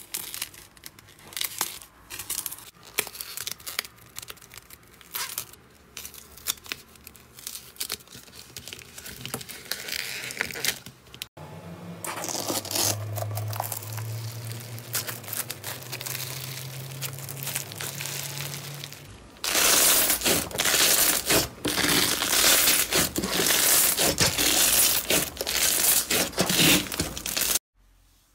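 Close-miked sticky crinkling and crackling of slime worked by hand, in three short clips. First a slime-coated squishy ball is squeezed, then a grainy foam slime is stretched and pulled. In the last third comes a louder, denser crackling.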